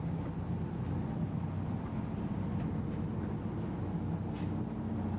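Boat engine running steadily, a low, even drone with a constant hum and no change in pace.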